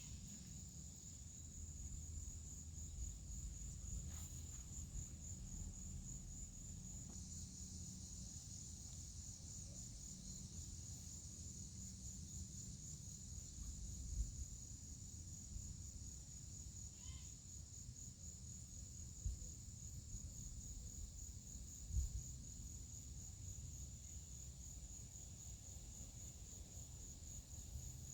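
Steady chorus of insects, a high pulsing trill that runs on without a break, over a low rumble. A few short low thumps come in the second half.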